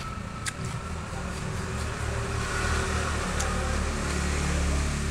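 Cucumber being chewed with the mouth closed, with two short crisp clicks about half a second in and near three and a half seconds, over a steady low hum.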